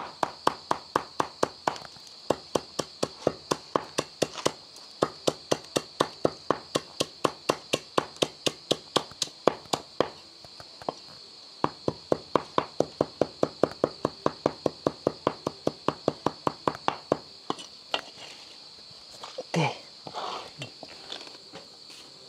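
Knife chopping fast and evenly on a chopping board, about four to five strokes a second, mincing a meat mixture. It pauses briefly about ten seconds in and stops at about seventeen seconds.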